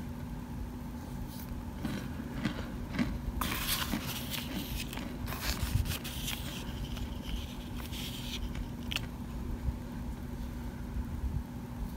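Plastic spoon scraping and crunching baked cornstarch powder and chunks in a glass bowl, in irregular strokes and small crackles that are busiest from about three and a half to six seconds in. A faint steady hum runs underneath.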